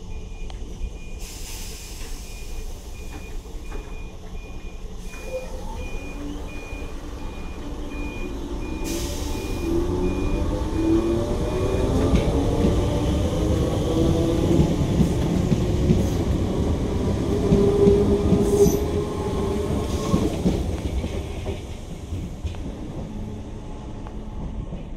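Merseyrail electric train pulling away, its motor whine rising in pitch as it gathers speed, with wheel and carriage noise building as it passes close by, then fading as it draws off. A faint, evenly repeating high beep sounds through the first half.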